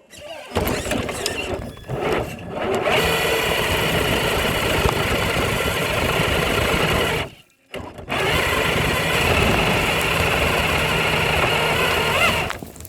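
Electric motor and gearbox of a Traxxas Hauler RC truck whirring steadily under throttle, in short stop-start bursts at first, then two long runs with a brief stop about seven and a half seconds in.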